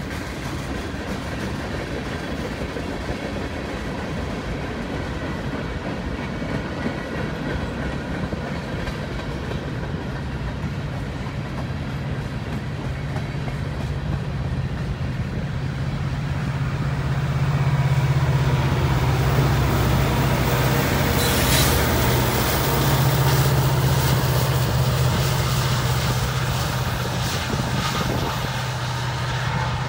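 Freight cars of a long manifest train rolling past, wheels running over the rail with a steady clatter. About halfway through, the steady hum of a diesel locomotive engine grows louder as the rear distributed-power unit comes up to pass.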